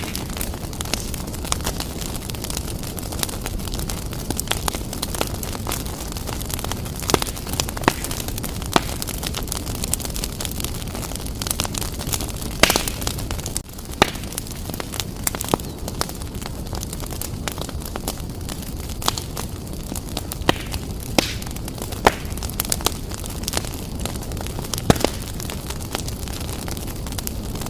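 Wood fire burning strongly in a fireplace: a steady low rush of flames with frequent sharp crackles and pops at irregular intervals.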